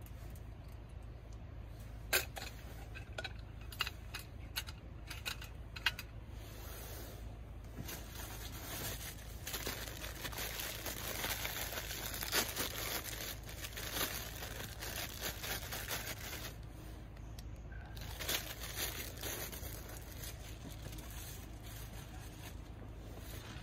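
Sharp metal clicks and knocks as a single-slice hot sandwich pan is handled and set on a small gas canister burner, then a long stretch of plastic crinkling and rustling as the packaging is handled and the bread is taken out.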